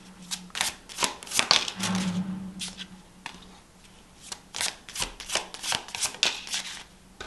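A tarot deck being shuffled and handled: a run of quick card flicks and slaps in two spells, one in the first three seconds and another from about four seconds in.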